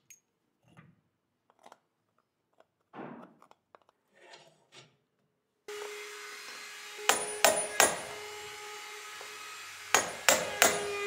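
Small metal clicks and rattles as a pressure washer's cart wheel is worked off its axle, then a hammer striking the wheel's metal hub: three sharp blows a little past halfway and four more near the end, over a steady shop hum.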